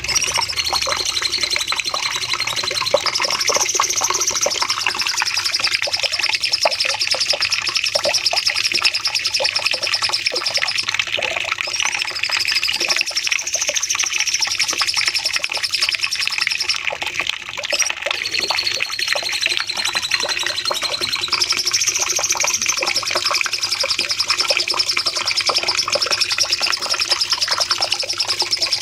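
Cucak cungkok singing a long, unbroken run of rapid, high chattering trills, with high phrases that recur every few seconds.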